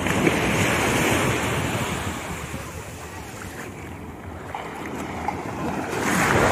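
Sea waves breaking and washing up the shore, one surge at the start and another near the end, with wind buffeting the microphone.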